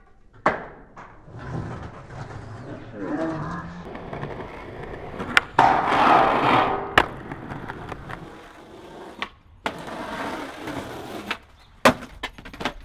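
Skateboard wheels rolling on rough concrete, with sharp clacks of the board popping and landing. About five and a half seconds in, the board scrapes along a steel I-beam for over a second, ending in a sharp landing clack. More clacks of pops and landings follow near the end.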